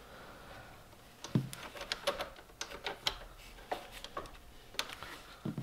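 Irregular light metallic clicks and clinks from small hardware being handled: a brake cable clamp and its bolt being fitted on the emergency brake cables. The clicks start about a second in with one louder knock, then go on unevenly.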